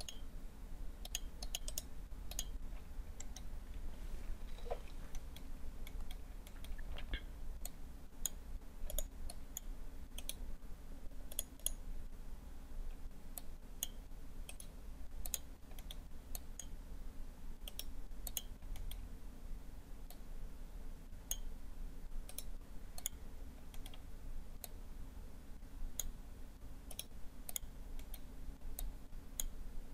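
Computer mouse clicking: short, irregular clicks scattered throughout, over a faint low steady hum.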